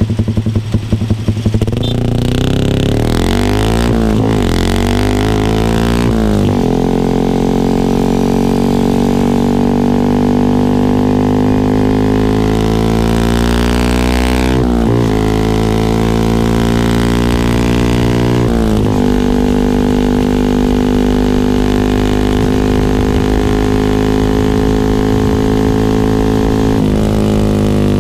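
Yamaha R15 V3's single-cylinder engine through an R9 GPX-SS full-system aftermarket exhaust. It idles with a choppy note, is revved up and down a few times, then holds a steady droning note at higher revs, dipping briefly a few times.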